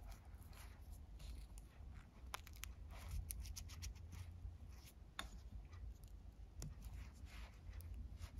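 Faint handling sounds of nylon paracord being worked through a plastic buckle and metal D-ring: scattered light clicks and scrapes over a low steady hum.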